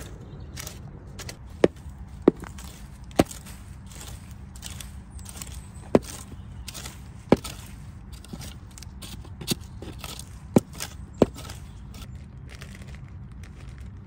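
Long-handled garden tool chopping into bed soil: about eight sharp knocks at irregular intervals, each with a brief ring.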